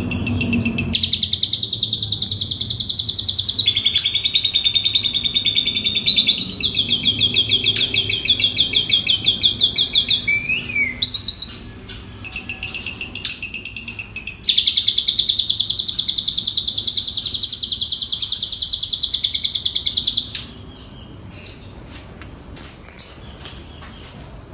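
Asian pied starling (jalak suren) singing its repertoire of mimicked songs, fast dense trills of high chirping notes in two long runs, broken by a short pause about eleven seconds in. The song drops to faint scattered calls about twenty seconds in.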